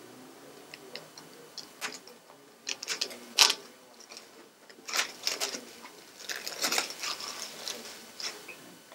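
Clear heat-shrink plastic wrap being torn and peeled off a cardboard box: irregular crinkling and crackling, with one sharper snap about three and a half seconds in.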